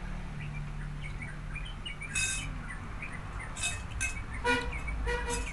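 Scattered short high chirps and a few sharp clicks over a steady low hum.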